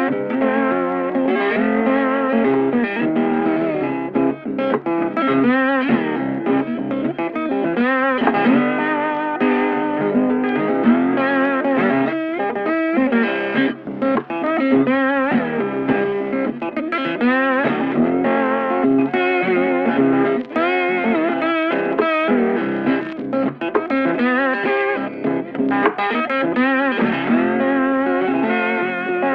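Electric guitar music with effects, bending, wavering notes over a steady backing.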